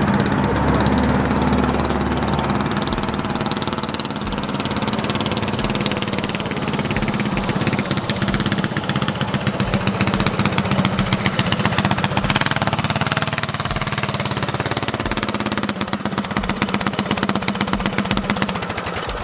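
Small Briggs & Stratton flathead single-cylinder engine running under load as the mini bike is ridden, its firing pulses coming fast and even.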